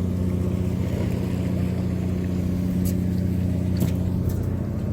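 Fishing boat's engine running with a steady low hum, with a few faint clicks in the second half.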